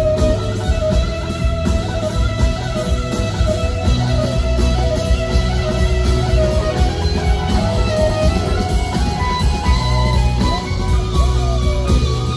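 Live rock band playing: an electric guitar lead line with gliding, sliding pitches over drums, bass guitar and rhythm guitar, heard loud from the audience.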